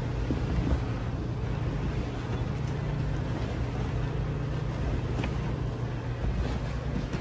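Steady low hum of laundry machinery, with soft rustling and a few light knocks as a heavy blanket is handled over a wire laundry cart.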